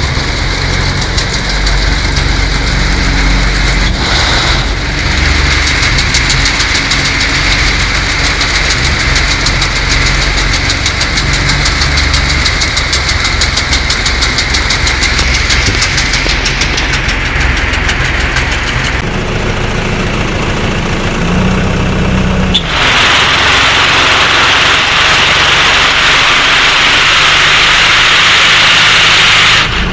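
Water hyacinth harvester's engine running steadily as the machine works. Its sound shifts about nineteen seconds in, and a louder, even rushing hiss comes in suddenly a few seconds later.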